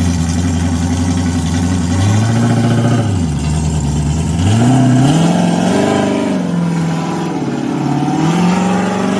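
Ford Gran Torino's freshly rebuilt engine running steadily, then its revs climb and fall about three times.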